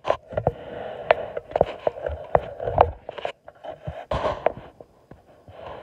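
Handling noise from a camera being tilted and repositioned on a tripod close to the microphone: a string of irregular clicks, knocks and rubbing over a steady hum.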